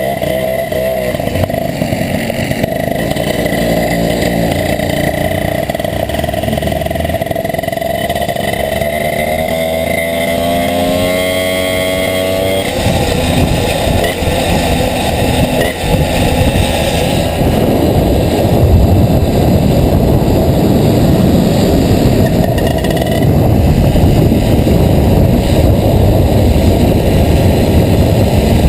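Small two-stroke moped engine running under way, its pitch climbing steadily about a third of the way through as it speeds up. A loud low rushing noise then takes over and grows louder through the second half.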